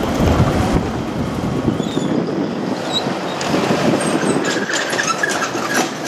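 Rumble and running noise of a Kintetsu electric commuter train moving away after clearing the level crossing. The deep rumble fades about two seconds in, leaving lighter rail and street noise.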